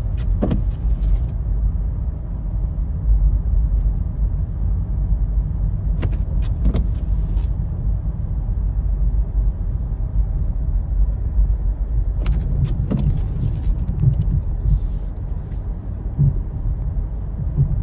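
Steady low rumble of a car's engine and tyres heard from inside the cabin while driving slowly down a snow-covered road, with a few brief clicks scattered through.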